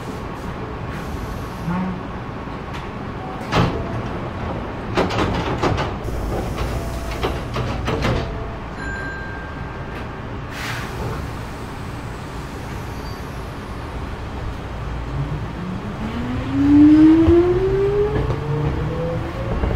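Hankyu 3300 series train at a station stop: sliding doors knocking and clunking shut over a few seconds, a short beep, then the traction motors start a whine that rises steadily in pitch as the train pulls away.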